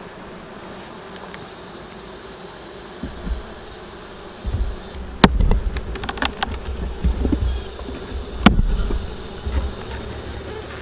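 Honeybees from an open hive buzzing steadily, with a few sharp knocks, the loudest about five seconds and eight and a half seconds in.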